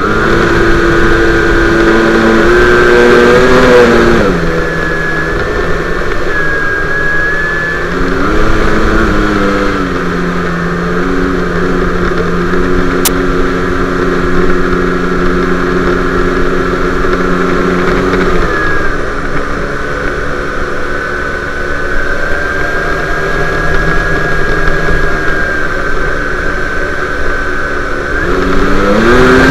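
Electric motor and propeller of a quarter-scale radio-controlled J3 Cub in flight, picked up by a camera on the airframe: a loud, steady whine and hum. Its pitch drops about four seconds in, climbs again around eight seconds, falls near eighteen seconds and rises near the end as the throttle changes.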